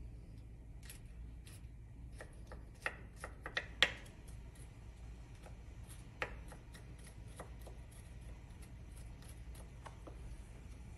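Chef's knife mincing garlic on a wooden cutting board: a run of quick, light knife taps on the board, loudest in a cluster about three to four seconds in.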